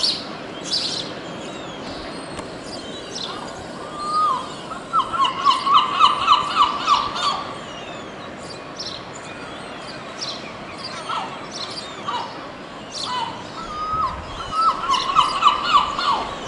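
Yellow-legged gulls calling: two bouts of fast repeated calls, one mid-way and one near the end, each led in by a single call, over thin high peeps throughout.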